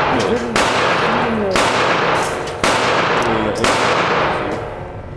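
Four gunshots about a second apart at a shooting range, each a sharp crack with a long echoing tail.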